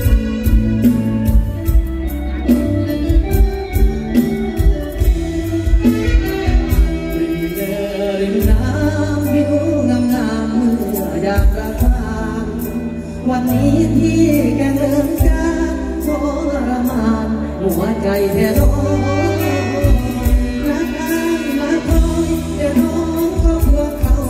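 Live Thai mor lam band music with a steady drum beat and bass, and a singer singing into a microphone over it.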